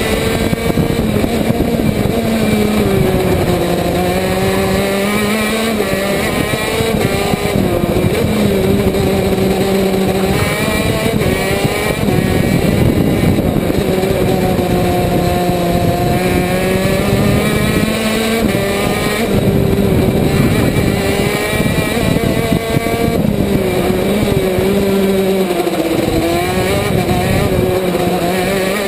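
On-board sound of a KZ2 shifter kart's 125 cc two-stroke engine at racing speed, its note rising and falling again and again as it accelerates down the straights and slows for corners.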